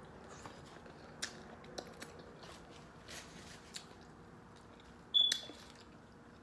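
Close mouth sounds of a person chewing seafood-boil food, with soft clicks and crunches scattered through. One short, sharp squeak about five seconds in is the loudest sound.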